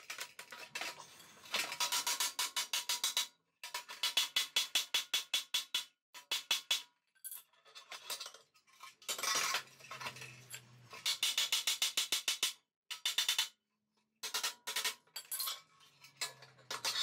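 Rapid metal-on-metal clicking and grating in bursts of a second or two, with short pauses between, as a rusted steel sleeve is twisted and worked back and forth on a steel rod to free it.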